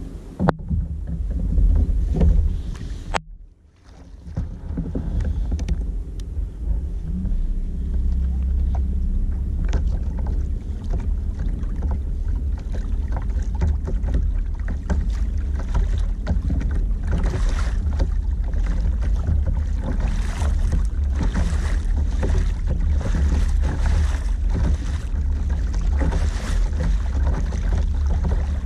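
Wind buffeting the microphone with a heavy low rumble, and water splashing and rushing along the hull of a moving sit-on-top kayak. The sound drops out briefly about three seconds in.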